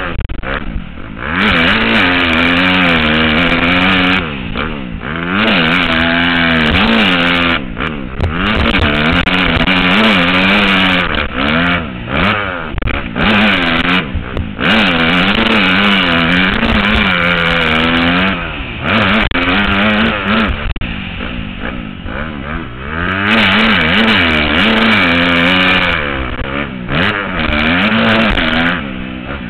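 125cc two-stroke motocross bike engine ridden hard: the pitch climbs as it revs out and drops off again and again on shifts and off the throttle, heard from the rider's helmet camera.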